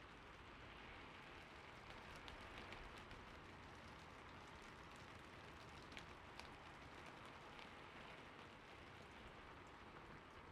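Faint, steady background rain sound, with a few soft clicks scattered through it.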